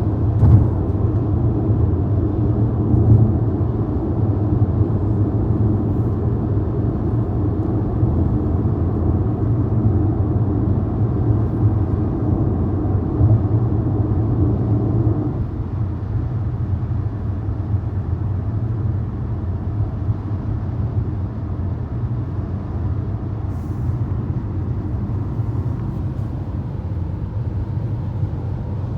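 Waterfall: a steady, deep rush of falling water, weighted toward the low end. About halfway through the middle of the sound drops and it becomes somewhat quieter.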